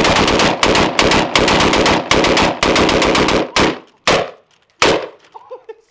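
Homemade minigun-style rotating rig of rifles firing a rapid string of shots for about three and a half seconds, followed by two last single shots.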